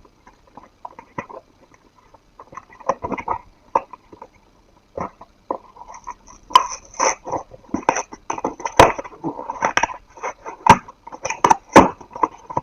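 A small cardboard blind box and its wrapping being opened and handled by hand: irregular clicks, scrapes and crinkles, sparse at first and busier through the second half.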